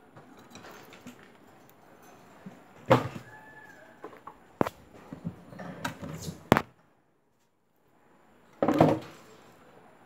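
A few irregular knocks and thumps, the loudest about three seconds in and again near the end, with a short stretch of dead silence between them.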